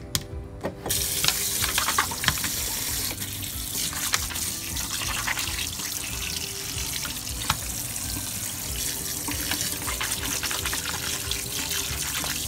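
Kitchen tap turned on about a second in, its running water splashing over pork ribs in a plastic colander in the sink as they are rinsed by hand, with a few small knocks as the meat and colander are handled.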